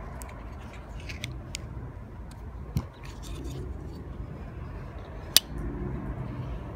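Spyderco Native 5 Salt lockback folding knife being worked in the hand: a few light clicks, then a single sharp snap about five seconds in as the blade closes against the lockback.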